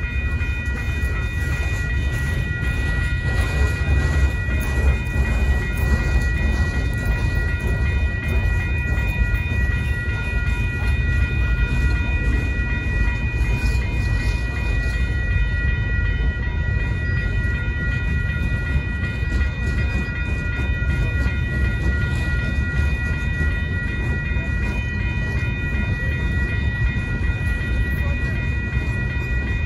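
Freight cars of a Union Pacific train rolling steadily past a grade crossing: a continuous low rumble and clatter of wheels on rail. Steady high ringing tones sit over the rumble throughout.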